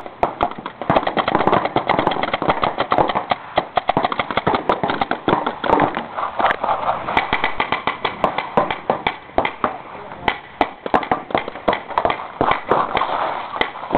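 Paintball markers firing in rapid strings of sharp pops, many shots a second, from several guns across the field.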